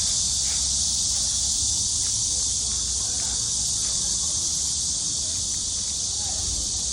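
A steady, high-pitched chorus of insects, with a low rumble of wind on the microphone.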